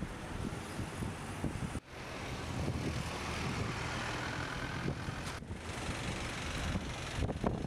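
Steady outdoor noise with wind buffeting the microphone and a low rumble, cut off abruptly and resumed twice, about two and five and a half seconds in.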